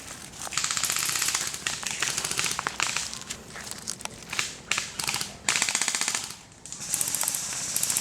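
Airsoft guns firing on full auto: a string of rapid-fire bursts of fast, even clicks, some short and some lasting about a second, with brief gaps between them.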